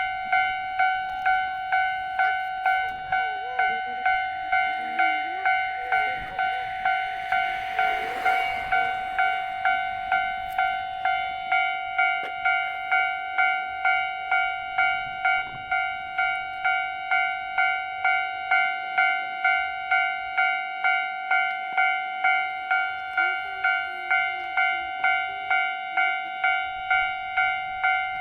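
Japanese railway level-crossing warning bell ringing steadily, just under two strikes a second. A single-car diesel railcar rushes past, briefly, about eight seconds in.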